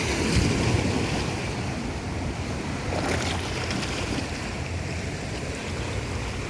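Sea waves washing in, with wind buffeting the microphone. Surges swell up about half a second in and again around three seconds in.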